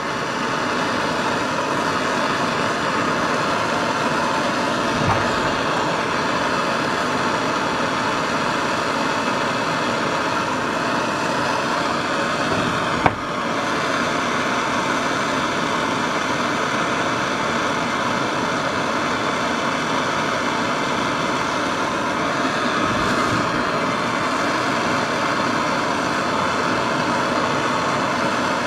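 Handheld propane torch burning with a steady rushing hiss as its flame heats a wheel bearing housing, expanding the bore so a freezer-chilled press-fit bearing will slide in. A single sharp click about halfway through.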